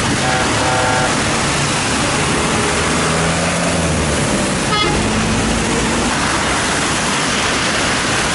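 Wet city street in the rain: a steady hiss of rain and tyres on wet road with passing traffic engines, and a brief car horn about half a second in.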